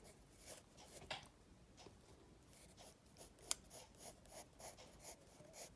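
Faint pencil strokes scratching on paper, a run of short repeated strokes, with one sharper tick about three and a half seconds in.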